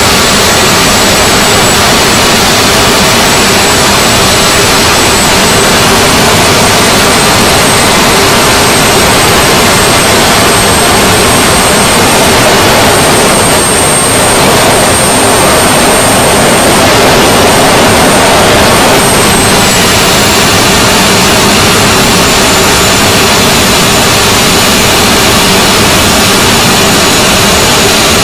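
Homemade turbocharger-based jet engine (gas turbine) running loud and steady, a dense rushing noise with a thin high turbine whine over it. The whine creeps up in pitch as the engine is throttled up toward full power, holds, then drops back sharply about twenty seconds in.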